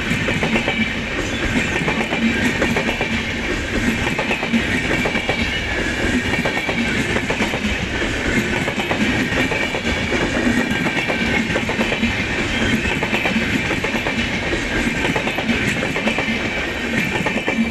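Indian Railways passenger coaches passing close by at speed, with a steady rumble and the clickety-clack of the wheels running over the track.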